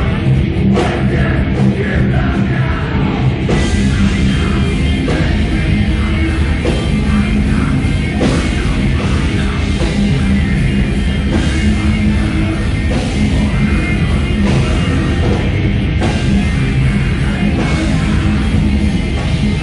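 Heavy metal band playing live: loud, dense distorted guitars, bass and drum kit going without a break. The sound fills out in the highs about three and a half seconds in.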